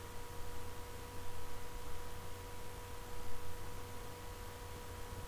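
Steady low hum with a thin, steady whine above it and faint hiss; no distinct event.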